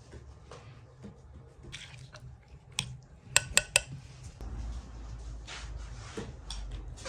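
A metal spoon scooping and scraping a soft curd-cheese and raisin filling in a glass bowl, with three quick clinks of the spoon against the glass about three and a half seconds in.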